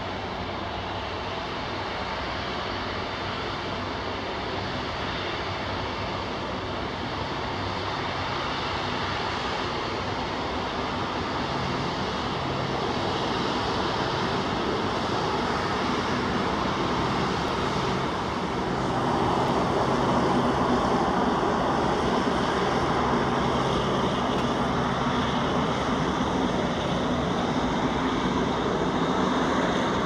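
Boeing 747-8 freighter's four GEnx jet engines running at low taxi power: a steady rushing jet noise with a low hum, growing louder about two-thirds of the way through.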